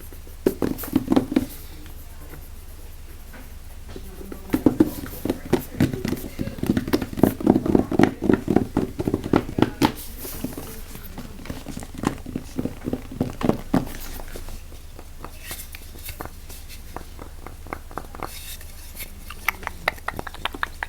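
Close-miked ASMR trigger sounds: quick taps and clicks on objects, coming thick and fast through the middle and thinning out near the end.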